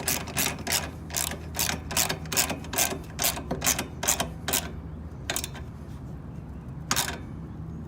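Socket ratchet wrench clicking rapidly, about four to five clicks a second, as it is worked back and forth to tighten a bolt. The clicking stops a little past halfway, with a few single clicks after.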